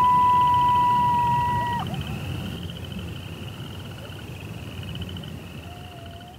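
Eerie night ambience: a long animal howl held on one pitch breaks off about two seconds in. Under it run a steady high pulsing trill and a low rumble, with a faint short call near the end, all fading out.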